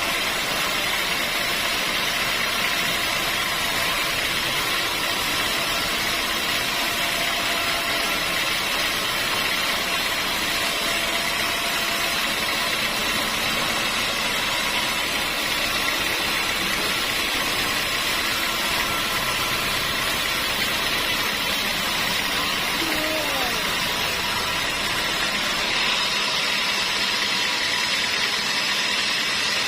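Engine-driven sawmill machinery running steadily, an even, unbroken mechanical noise.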